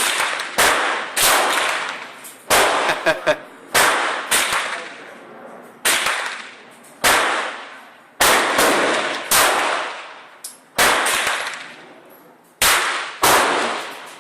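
Polish Radom Vis 35 9mm pistol fired repeatedly: about a dozen sharp shots at uneven intervals of half a second to two seconds, each followed by a long echoing decay.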